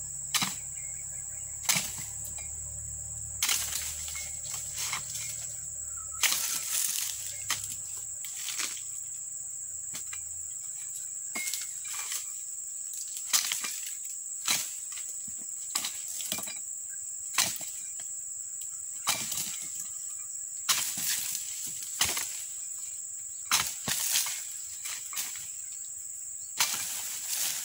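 Dodos, a pruning chisel on a long pole, chopping into oil palm frond bases in repeated sharp strikes, irregular and roughly one every second or so, with rustling fronds. A steady high insect drone runs underneath.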